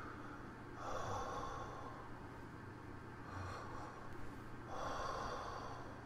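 A man breathing deliberately close to the microphone: two long breaths, about a second in and near the end, with a shorter one between. He is trying to bring his breathing under control during a panic attack.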